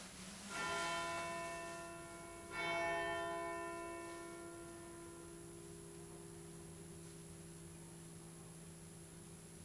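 A bell struck twice, about two seconds apart, each stroke ringing on and slowly fading away.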